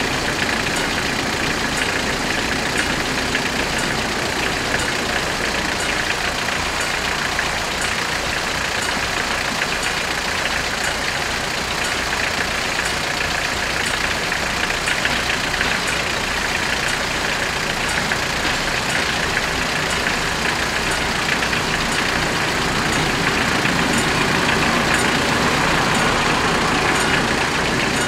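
Level-crossing warning bells ringing steadily over idling vehicle engines. The sound grows somewhat louder in the last few seconds as a diesel railcar arrives at the crossing.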